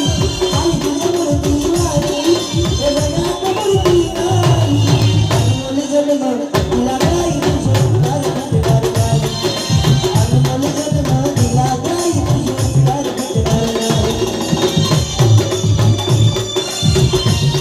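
Instrumental interlude of Marathi tamasha folk music: a steady beat of drum strokes with jingling percussion under a melodic line, with a brief break about six and a half seconds in.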